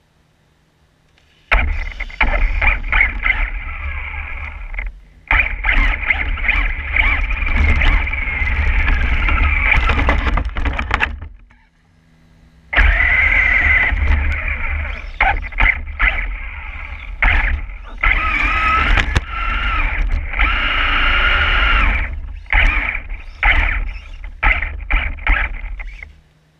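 Losi XXX-SCT RC short-course truck driving on snow, heard from a camera on its body: its motor and gears whine in rising and falling bursts over a heavy rumble and clatter from the tires and chassis. It sets off about a second and a half in, stops briefly near the middle, then drives again until just before the end.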